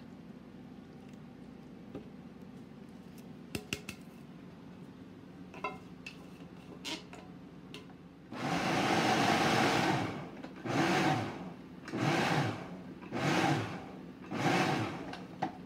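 Electric food processor chopping tomatoes into a parsley and garlic mixture: one run of about two seconds, then four short pulses. Before it starts, a few light clicks and taps as the can is emptied and the lid is fitted.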